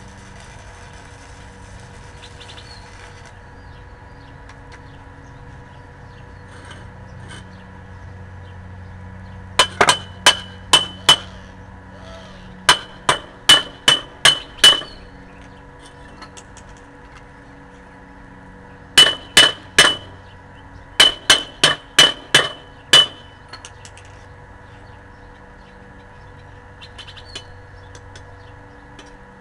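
Stick-welding arc from a DC inverter welder hissing and crackling on a steel bar, cutting off about three seconds in. Then a chipping hammer strikes the weld in four quick runs of sharp, ringing metal taps, about three a second, knocking the slag off the bead.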